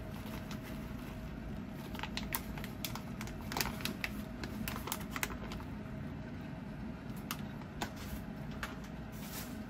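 Curry roux flakes being shaken out of a foil pouch into a pot of water and vegetables: scattered light, irregular ticks and crinkles from the pouch and falling flakes, over a steady low hum.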